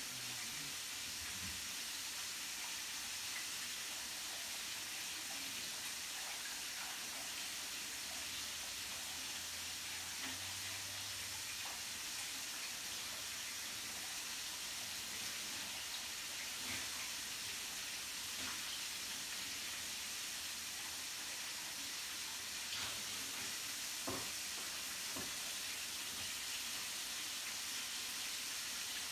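Chicken frying in oil in an electric skillet: a steady sizzle with a few faint pops.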